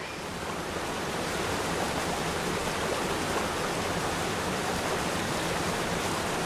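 Steady rushing of falling water, an even roar with no distinct hits, from the waterfalls of the Las Vegas volcano attraction.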